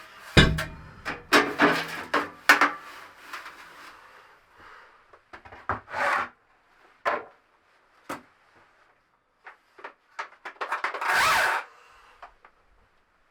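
Wood being handled and worked: a run of knocks and scrapes, then scattered clicks, and a longer scraping stretch near the end.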